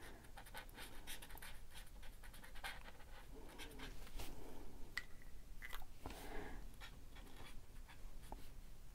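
Faint scratching of a Sharpie marker's felt tip on paper, in many short, quick strokes as colour and shading are laid in.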